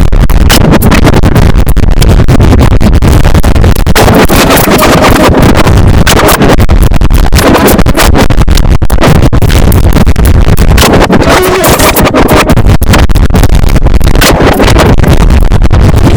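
Very loud, heavily distorted electronic music, its level pinned at full scale.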